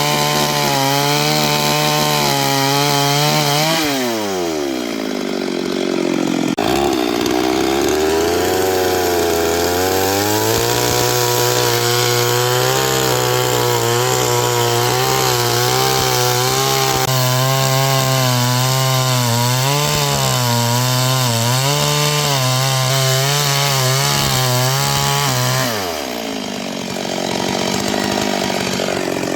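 Chainsaw cutting through timber under load. Its engine pitch falls away about four seconds in, climbs back over the next few seconds into a long steady cut, and drops again near the end.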